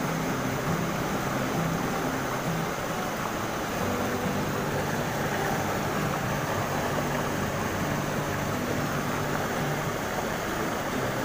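Shallow rocky stream rushing steadily past boulders: an even, unbroken water hiss.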